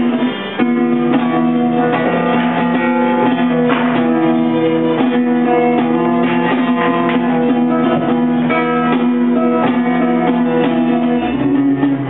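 Nylon-string classical guitar played fingerstyle: plucked notes over a low note that keeps sounding underneath, after a brief dip about half a second in.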